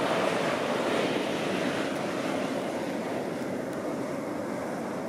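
Geyser steam vent jetting steam: a steady rushing hiss, a little softer in the second half.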